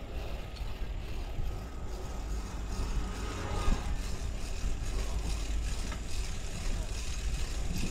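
Steady low wind rumble on the microphone while riding a bicycle, with one brief knock just under four seconds in.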